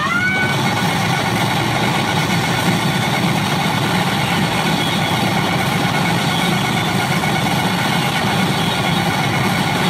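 CR Hokuto no Ken 7 Tensei pachinko machine playing a steady, low, noisy effect sound during a fiery build-up sequence, opening with a quick rising sweep.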